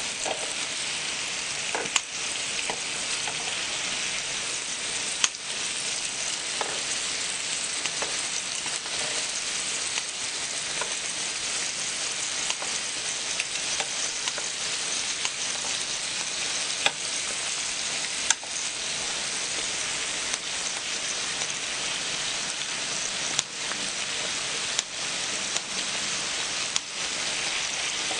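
Pork belly and other meats sizzling steadily on a hot griddle, with a few sharp clicks of metal tongs and scissors against the griddle as the meat is cut.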